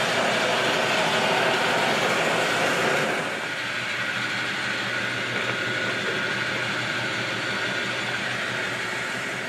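A gas station fuel pump running while fuelling a vehicle: a steady rushing hum that drops to a quieter, duller hum about three seconds in.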